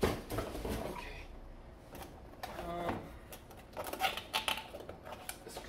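Cardboard packaging being handled: a small cardboard box is slid, tapped and its tabbed flap worked open, in short irregular scrapes, clicks and rustles that come thicker near the end.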